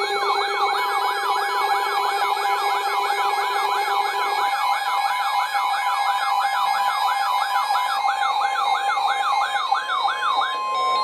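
Electronic emergency alert siren yelping, sweeping up and down about three times a second over steady alert tones, heralding a tornado warning. The sweeping stops just before the end, leaving a single steady tone.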